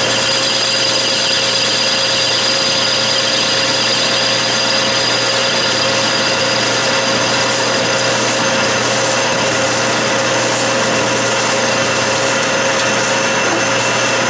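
Metal lathe running at 600 RPM while an Iscar carbide cutoff insert parts off a 7/8-inch aluminium bar under power feed: a loud, steady machine whine with the noise of the cut.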